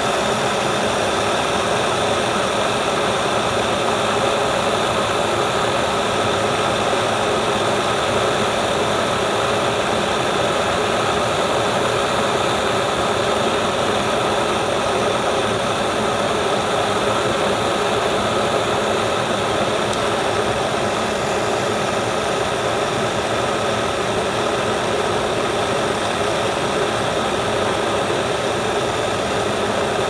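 Glass electric kettle heating water, a steady rushing noise as small bubbles form on the bottom and steam rises, short of a full rolling boil.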